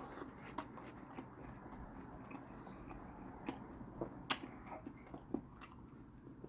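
A person chewing a mouthful of chicken torta sandwich close to the microphone, quietly, with scattered short sharp mouth clicks and smacks, the loudest about four seconds in.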